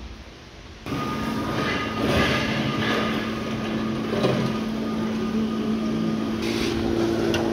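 Steady warehouse machinery noise: a constant hum and whine with scattered clatter, coming in suddenly about a second in.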